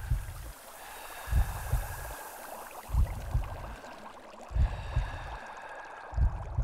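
Deep double thumps like a slow heartbeat, one pair about every second and a half, over a bed of bubbling, gurgling underwater water noise.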